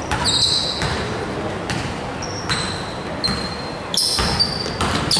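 Basketball game play on a gym court: the ball bouncing with sharp thuds while sneakers squeak in short, high chirps, several times over.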